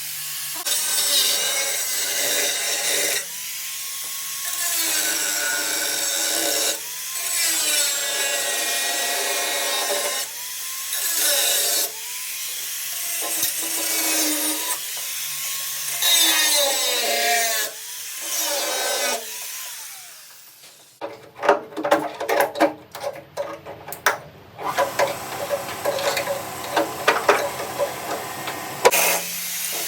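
Handheld power tool cutting or grinding in repeated passes of a few seconds each, its motor pitch dipping and recovering. About two-thirds of the way through, this gives way to irregular clatter and scraping.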